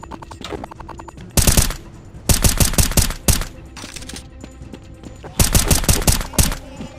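Three bursts of rapid automatic gunfire, a gunfire sound effect dubbed over the blaster fight: a short burst about a second in, a longer one around two to three seconds, and another near the end. Rhythmic background music plays underneath.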